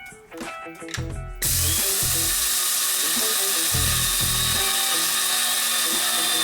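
KRUPS electric blade spice and coffee grinder switching on about a second and a half in and running steadily with a loud, even whir.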